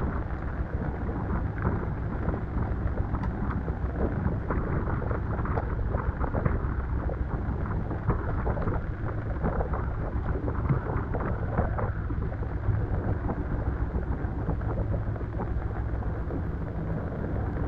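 Strong wind buffeting the microphone on the deck of a sailboat, a steady low rumble broken by frequent crackles over the rush of wind and water.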